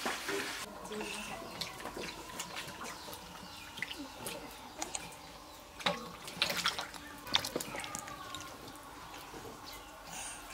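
Vegetables being washed by hand in a steel bowl of water: water sloshing and dripping, with a cluster of sharper splashes about six to seven seconds in.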